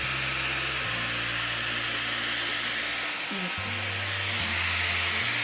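Dyson Airwrap with its smoothing brush attachment blowing a steady rush of hot air while it straightens curly hair. Background music with a low bass line plays underneath.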